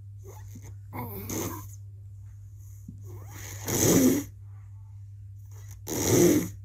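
A sleeping young child snoring: three loud snores about two and a half seconds apart, over a steady low hum. Snoring is an abnormal upper-airway breath sound, heard when the nose is blocked or something is wrong in the mouth or throat.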